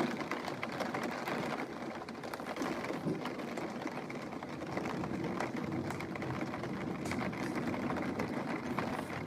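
Heavy rain from a thunderstorm, heard through a closed window as a steady, muffled rushing hiss.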